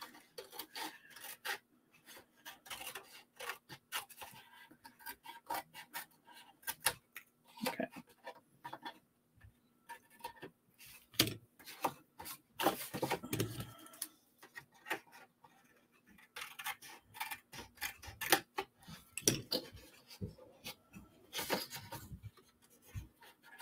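Paper snips cutting cardstock, with the cardstock rustling and sliding as it is handled: a string of irregular light clicks and scrapes with a few short pauses.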